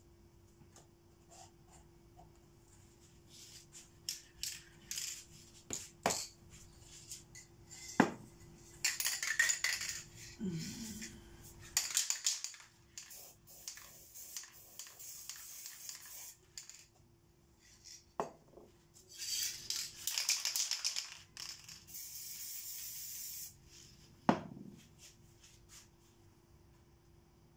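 Aerosol spray paint can hissing in several short bursts, with one longer steady spray near the end, between sharp knocks and clinks of metal cans and a lid being handled and set down on the table.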